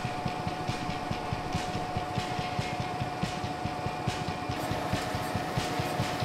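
A 1902 pilot paper machine running: a steady mechanical drone from its rolls and drives, with a constant whine and a rapid, regular low pulsing underneath.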